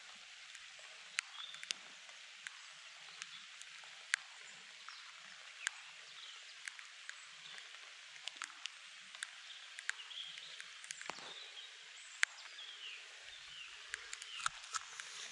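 Outdoor ambience in light rain: a steady soft hiss with scattered, irregular sharp drip ticks and a few faint bird chirps.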